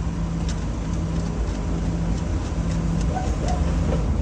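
A steady low engine hum from a running motor vehicle, with a few faint clicks over it.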